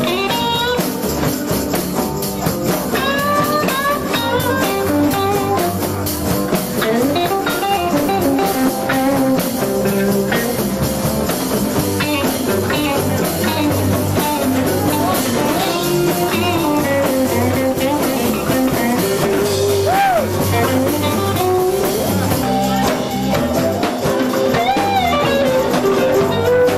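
A blues band playing: guitar with bent, gliding notes over a steady drum beat.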